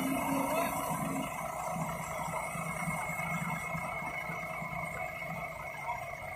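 Diesel engine running steadily under working load, with a thin high whine held over it.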